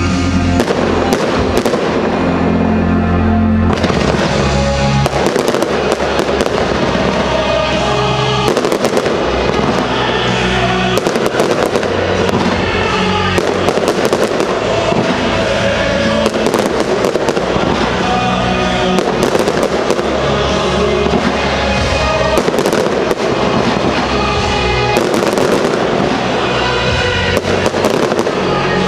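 Fireworks bursting and crackling in many sharp bangs throughout, over loud music playing steadily.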